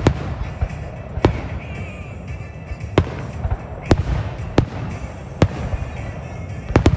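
Aerial fireworks display: shells launching and bursting in a series of sharp bangs, roughly one every second, with two in quick succession near the end, over a steady low rumble.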